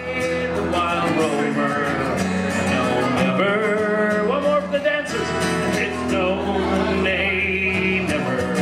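A man singing into a microphone while strumming an acoustic guitar, a live solo song.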